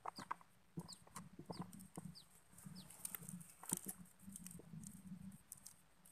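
Faint outdoor sounds: light clicks and rustles of dry grass and twigs, the loudest about two thirds of the way in, with four short falling chirps from a bird early on and a low wavering animal call that comes and goes.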